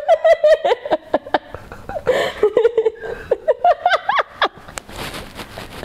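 A woman laughing hard in quick, high-pitched bursts, dying down to softer laughter after about four and a half seconds.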